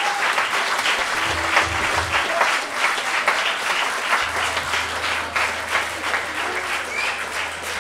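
Crowd applauding, dense clapping throughout, with a low steady hum coming in about halfway through.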